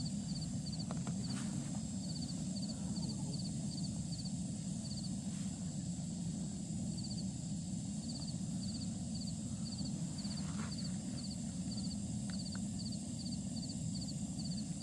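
Mountain outdoor ambience: an insect chirping in short, rapid pulsed trills that repeat steadily a little under twice a second, pausing briefly about halfway, over a steady low rumble and a faint high whine.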